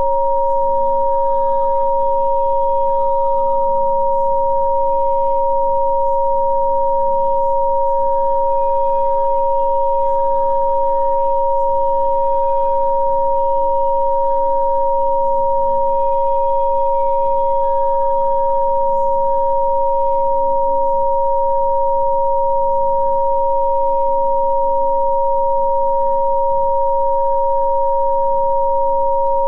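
Two steady pure electronic tones sounding together, unchanging throughout, as played in a Rife frequency-therapy session, over soft ambient music whose low notes shift every couple of seconds.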